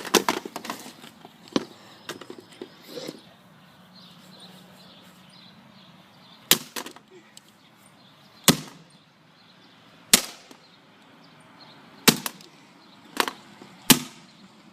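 A series of sharp single knocks from a plastic Nerf gun being stress-tested, one every one to two seconds, with a quieter gap in the middle.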